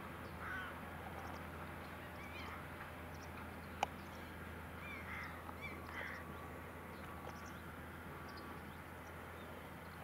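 A flock of gulls calling in short, scattered cries over the steady low drone of a John Deere 6150R tractor's engine as it ploughs. A single sharp click comes just before four seconds in.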